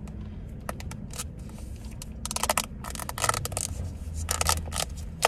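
Plastic drink cups and lids being handled, with short bursts of scraping and crackling, over a low steady hum inside a car.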